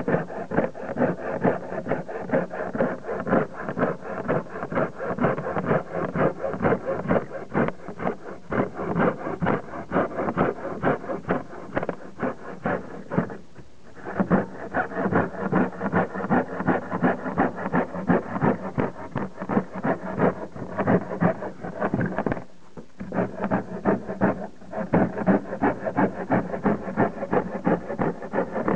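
Hacksaw blade, held in a door hinge as a handle, sawing through melamine-faced board in quick, short back-and-forth strokes. The sawing stops briefly twice.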